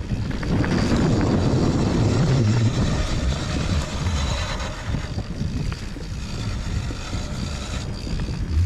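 Wind buffeting the microphone of a mountain bike descending a dirt trail, with the knobby tyres rolling over dirt and dry leaves. It is loudest in the first few seconds.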